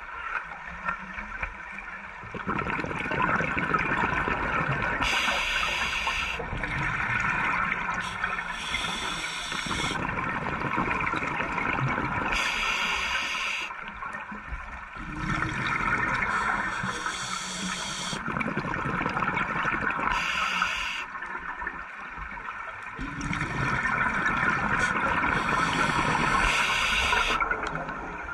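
Scuba diver breathing through a regulator underwater: a hiss on each inhale and a gurgling rush of exhaled bubbles, repeated in a slow rhythm of about six breaths.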